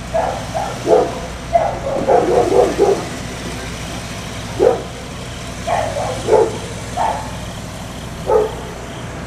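Vehicle engine idling steadily, with a dog barking repeatedly in short bursts over it, several in quick succession in the first three seconds, then single barks every second or two.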